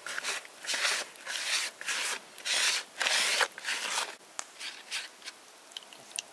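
Hands stirring and rubbing flour in a plastic bowl: a run of scraping, rustling strokes, about two a second, that stop a little after four seconds in, leaving a few faint clicks.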